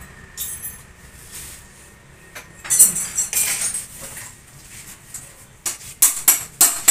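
Sharp metallic clinks of metal striking metal: a short cluster about three seconds in, then an even run of taps about three to four a second near the end.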